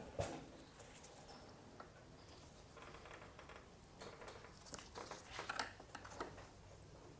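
Faint scratching and light clicks of a flathead screwdriver prying at a rubber grommet in a motorcycle's metal tailplate mount, coming in short irregular bouts.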